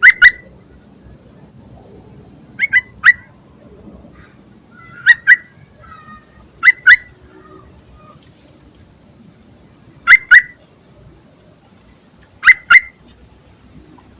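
Yellow-vented bulbul (trucuk) calling: short, sharp notes in quick pairs, six times a few seconds apart.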